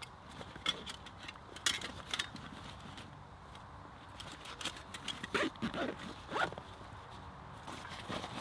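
Rucksack being packed and closed up by hand: a zip being pulled, with short clicks and rustling of straps, buckles and fabric.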